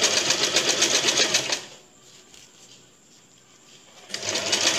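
Compact electric sewing machine stitching through fabric in rapid, even strokes. It stops about a second and a half in and starts stitching again a little before the end.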